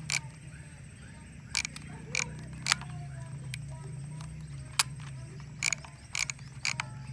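Kodak M35 35 mm film camera's mechanism clicking as it is wound on and worked: about eight sharp clicks, spaced irregularly, some in quick pairs.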